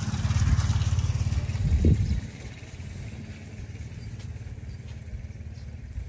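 A vehicle engine running with a low, even pulse. It peaks just before two seconds in, then falls away suddenly, leaving a quieter steady hum.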